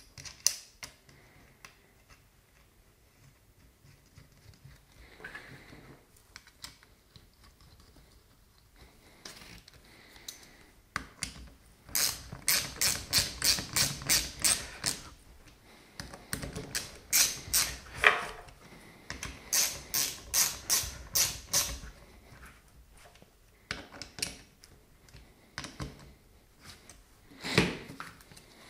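Socket ratchet clicking in two long runs of evenly spaced clicks, about three to four a second, as a bolt is driven into the air suspension compressor's metal frame, with a few scattered clicks and taps of tool and metal before and after.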